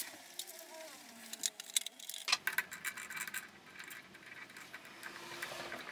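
Scattered light metallic clicks and taps as parts of a mini lathe are handled: a steel rod is being fitted into the three-jaw chuck by hand.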